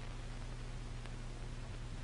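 Steady hiss with a low hum underneath: the background noise of an old film soundtrack, with no other distinct sound.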